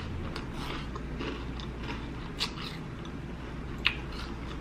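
Close-up chewing of a mouthful of crunchy fried food: soft wet crackles throughout, with two sharper crunches, one about halfway through and one near the end.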